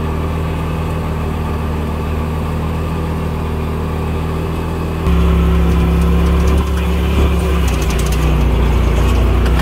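Engine of a side-by-side off-road vehicle running steadily under way, heard from the seat; the drone gets abruptly louder about five seconds in.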